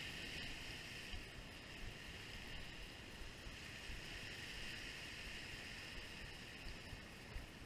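Faint, steady wash of small waves breaking over jetty rocks, with a low wind rumble.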